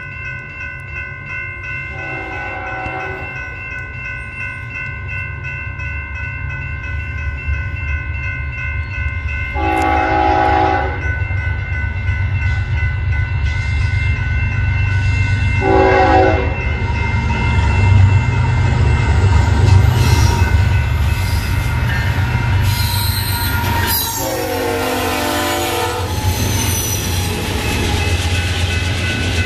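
BNSF diesel freight locomotive sounding its air horn for a grade crossing: two long blasts, a short one, then a last long blast that drops in pitch as the locomotive passes. Under it the engine and train rumble grows louder as it approaches, and a crossing bell rings steadily.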